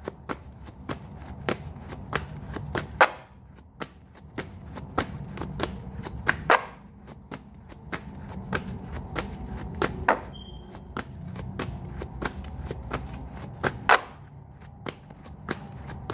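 Tarot cards being shuffled by hand: a quick, irregular run of card taps and flicks, several a second, with a few louder snaps as the deck is cut or knocked together.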